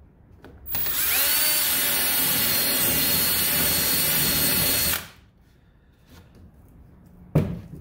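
Cordless drill with a spade bit boring through 1/4-inch plywood. The whine rises in pitch as the drill spins up, holds steady for about four seconds, then stops suddenly. A sharp knock comes near the end.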